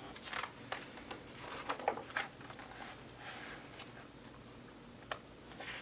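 Album contents being handled: soft rustling of paper and card with several light taps and clicks.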